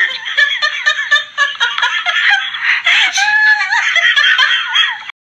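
A person laughing hard in high-pitched, breathless giggles, cutting off suddenly near the end.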